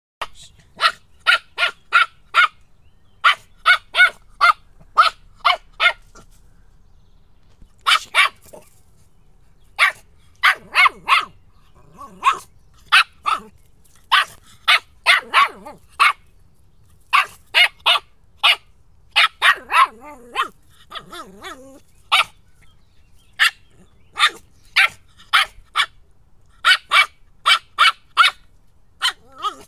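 Border terrier puppy barking in quick runs of sharp, high-pitched barks, several a second, with short pauses between runs.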